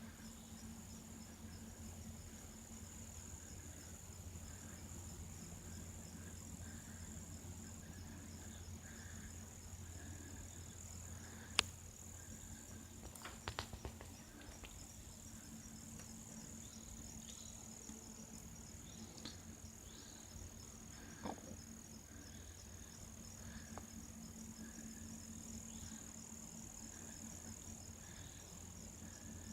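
Faint chorus of crickets and other insects in the woods: a steady high-pitched drone with a softer chirping that pulses about twice a second. A few sharp clicks or snaps cut through partway in, the loudest about twelve seconds in.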